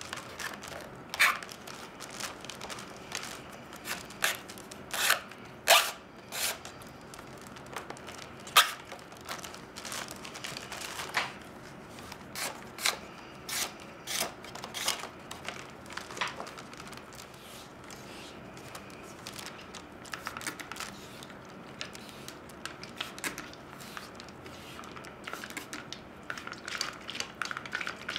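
Reed lashing being pulled through the weave and wrapped around a reed basket rim: rustling and creaking, with irregular sharp crackles as the strand is drawn tight, coming thickly at first, thinning out in the middle, and picking up again near the end.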